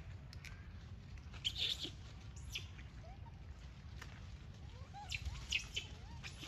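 Scattered animal calls: short high chirps and squeaks, with a few soft rising-and-falling calls in the second half, over a steady low hum.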